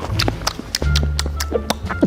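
Background music with a bass line and quick, clip-clop-like clicking percussion.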